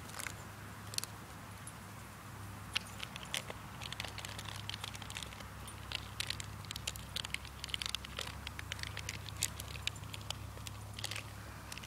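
Faint, irregular crackling and crinkling of a plastic water bottle as dogs chew and tug on it, a rapid scatter of sharp clicks that thickens from about three seconds in.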